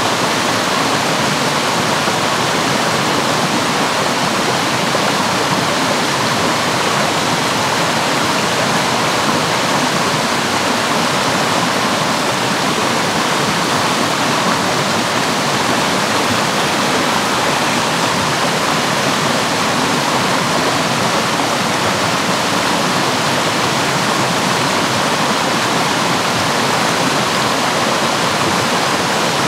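Rushing water from a stream or waterfall, a steady even roar that does not change.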